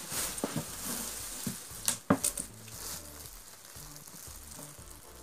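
Plastic packaging rustling and crinkling as a plastic-wrapped garment steamer hose is pulled out of a cardboard box, with a few sharp clicks about two seconds in.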